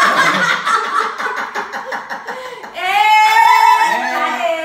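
Several adults laughing loudly together in rapid bursts, turning about three seconds in to one long high-pitched laugh.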